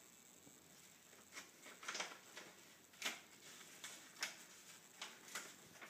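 Paper being handled and opened by hand: a string of short, crisp crinkles and rustles at uneven intervals, starting after a quiet first second or so.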